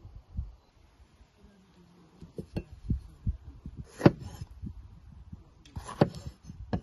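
Large cleaver-style knife chopping through a red bell pepper onto a wooden cutting board: a few sharp knocks, the loudest about four and six seconds in, with lighter taps between. Low thumps and rumble lie under them.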